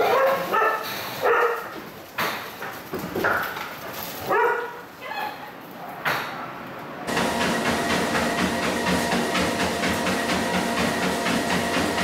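Several dogs barking and yipping in short separate calls. About seven seconds in it cuts to a Spirit treadmill running steadily, with a quick even ticking of a dog's paws trotting on the moving belt.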